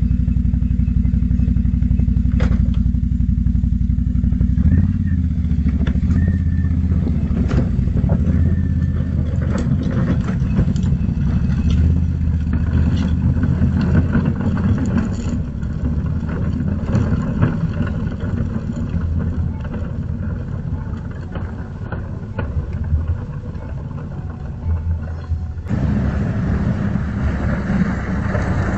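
ATV engine running as it tows three wheeled garbage cans, steady at first and then varying, with scattered knocks. The sound changes abruptly about 26 seconds in.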